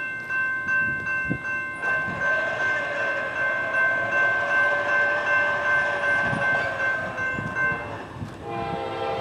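Air horn of an approaching Norfolk Southern GE D9-40CW locomotive, sounding one long steady chord that stops just before the end. About half a second later a second, lower-pitched blast begins.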